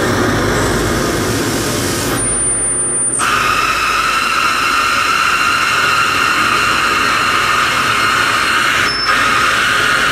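Harsh noise from live analog electronics and effects boxes: a loud, dense wall of distorted noise, joined about three seconds in by a steady high whine with fainter tones above it. The top end cuts out briefly twice as knobs are turned.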